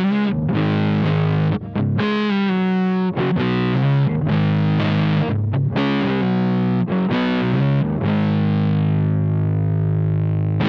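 Electric guitar played through a Phaez Daisycutter amp and recorded via a Two Notes Torpedo Captor's built-in mic simulation: a run of chords and riffs, ending on one long held chord from about eight seconds in.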